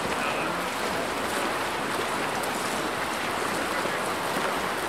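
Steady splashing of water polo players sprinting freestyle through the water.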